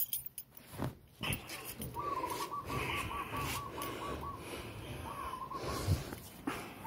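Small dog whining in a high, rapidly pulsing tone, in one longer stretch about two seconds in and shorter ones later, over rustling as it is handled.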